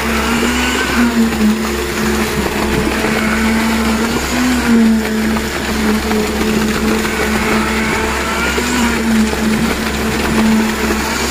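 Handheld electric concrete vibrator running in fresh concrete, a steady motor whine that wavers and dips in pitch now and then, over a low steady machinery drone from the concrete pump.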